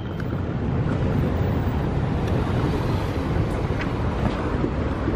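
Wind buffeting the microphone over the steady noise of cars moving along a terminal drop-off lane, with a few faint ticks.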